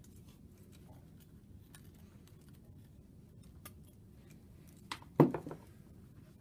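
Faint handling clicks of wires and a removed circuit board, then a couple of sharp knocks about five seconds in as the board is set down on a work cart.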